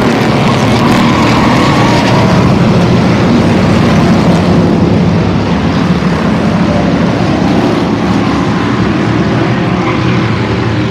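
A pack of street stock race cars running at racing speed around the oval, their engines making a loud, steady din.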